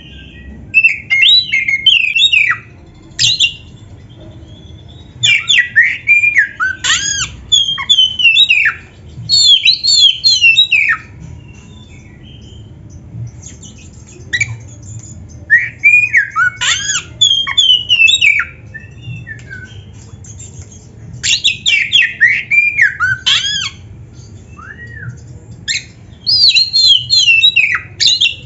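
Oriental magpie-robin (kacer) singing loud phrases of rapid, varied whistles and squawky notes. Each phrase lasts a few seconds, with short pauses between them.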